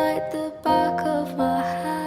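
Soft, gentle background music with sustained melodic notes.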